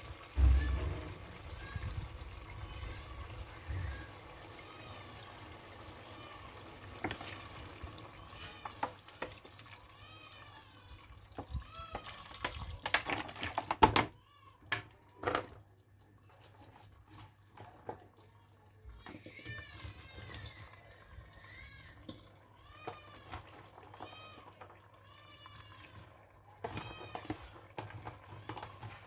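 Many short, high calls that rise and fall, mewing like a cat, come in runs through most of the stretch. A loud thump opens it, and a loud rush of clattering noise comes about twelve to fourteen seconds in.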